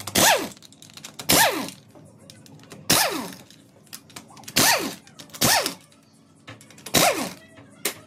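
Impact wrench undoing the bolts of a motorcycle engine's magneto cover in six short bursts, each ending in a falling whine.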